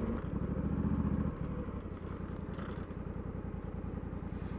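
Honda Africa Twin Adventure Sports parallel-twin engine running while riding, then about a second and a half in dropping to a quieter, steady, even idle.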